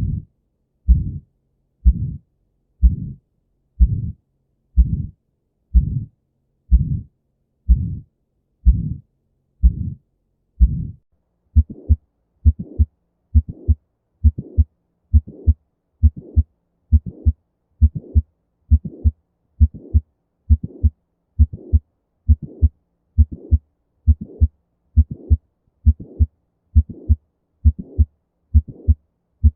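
Recorded heartbeat, a steady lub-dub about once a second. About eleven seconds in it changes to a faster beat, roughly one and a half a second, with a slightly brighter sound.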